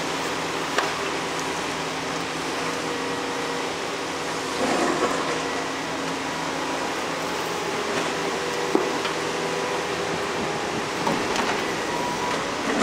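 Daewoo crawler excavator's diesel engine running steadily while it digs soil, swings and loads a dump truck. A few sharp knocks and clanks sound over the hum, a cluster about five seconds in and a few more near the end.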